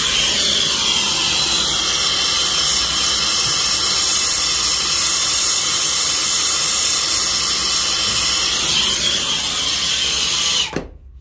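Brazing torch flame hissing steadily while a copper line is brazed onto a thermostatic expansion valve, then shut off suddenly near the end.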